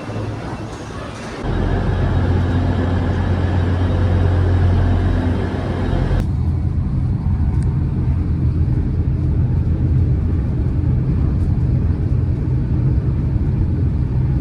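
Steady low rumble of a vehicle in motion, with a strong low hum. The higher hiss drops away abruptly about six seconds in.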